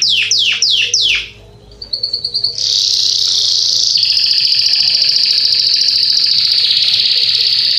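Yellow Belgian (domestic) canary singing: a run of quick down-slurred whistles, about three a second, stops about a second in; after a short pause a brief fast trill starts, then a long, rapid rolling trill that goes on without a break.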